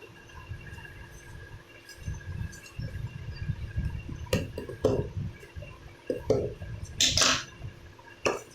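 Box and packaging of a facial kit being handled and opened: low handling rumble, then a handful of sharp clicks and light knocks from about four seconds in, and a louder rustle of packing material near the end.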